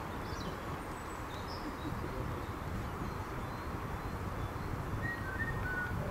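Birds chirping faintly a few times over a steady low rumble of open-air background noise.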